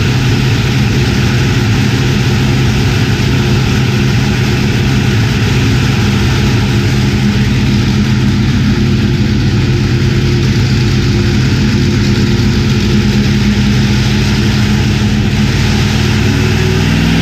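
Boosted drag-race engine running loud and steady at idle on an engine dyno through open headers, a rough, even rumble; its pitch just begins to climb at the very end.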